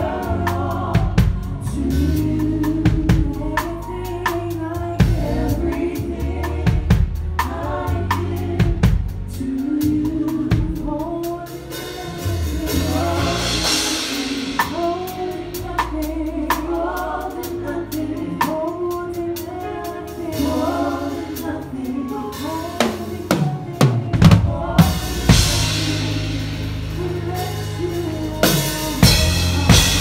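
Drum kit played live in a gospel band: kick, snare and rim hits under singing and keyboard, with cymbal washes swelling up twice, around the middle and again near the end.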